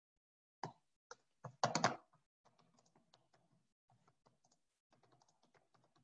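Typing on a computer keyboard: a few louder keystrokes in the first two seconds, then a run of faint, quick key clicks.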